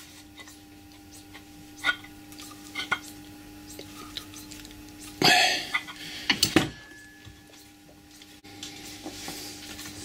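Metal parts of a Colchester lathe compound slide clinking and knocking as they are handled and worked with hand tools: a few light taps, a louder clatter about five seconds in, then a couple of sharp knocks. A steady hum runs underneath.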